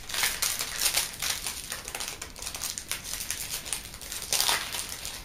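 Crinkling of a trading card pack's foil wrapper being handled, as a run of irregular crackles with a louder cluster near the end.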